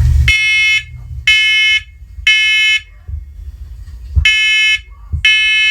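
First Alert Onelink talking smoke alarm sounding its test alarm: loud half-second beeps in groups of three with a pause between groups, the temporal-three evacuation pattern.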